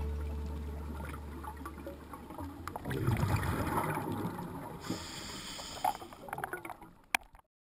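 A fading music tail gives way to underwater camera audio: a gurgling rush of a scuba diver's exhaled bubbles lasting about two seconds, then a few sharp clicks, before the sound cuts off to silence near the end.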